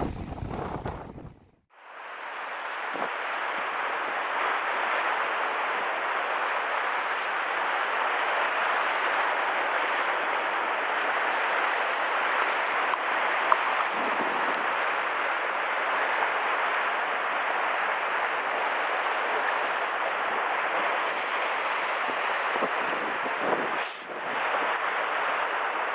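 Sea surf washing against a rocky shore, a steady hiss of moving water. For about the first second and a half, wind rumbles on the microphone before cutting off.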